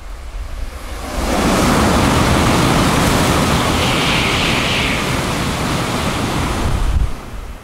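Sanyo Shinkansen bullet train passing through a station at very high speed without stopping. A loud rush of air and wheel noise rises sharply about a second in, holds for about six seconds, and cuts off suddenly as the tail clears. Steady rain hiss lies under it.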